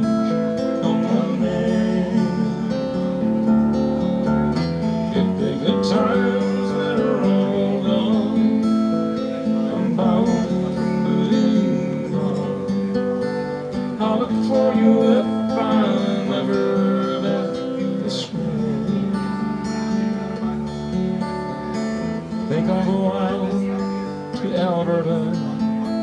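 Acoustic guitar strummed and picked through a folk ballad, with a man's singing voice coming in at times.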